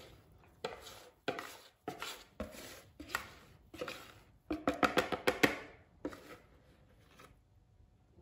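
Wire whisk scraping and knocking against a plastic mixing bowl while the last of the cake batter is worked out of it, roughly a stroke every half second, with a quick run of louder taps about five seconds in.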